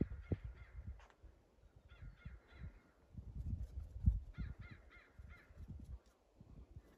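Common ravens calling: three quick runs of short calls, a few notes each, between about two and five seconds in. A low rumble with thuds sits underneath, loudest about four seconds in.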